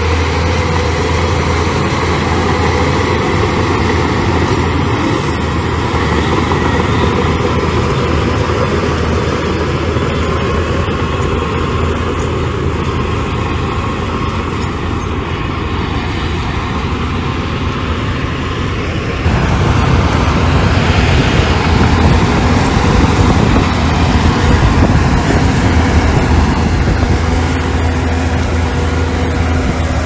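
Bulldozer's diesel engine running with a steady low drone. It gets louder about two-thirds of the way through.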